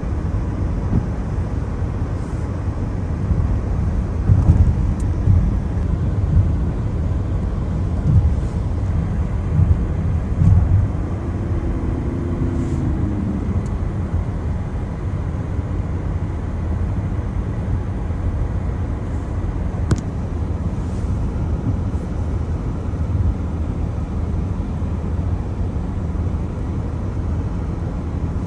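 Car driving on wet roads in the rain: a steady low road and engine rumble with the hiss of tyres on water, heard from inside the cabin, with a few brief louder thumps in the first half.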